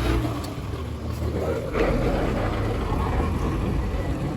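Steady low rumble of road vehicles mixed with wind buffeting the microphone. It cuts in abruptly just before the start.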